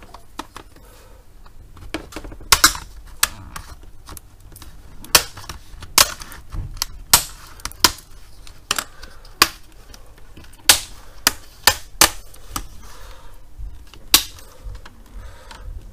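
Plastic snap-in clips of a Lenovo G50 laptop's display bezel popping loose as the bezel is pried off, a string of sharp, irregular clicks.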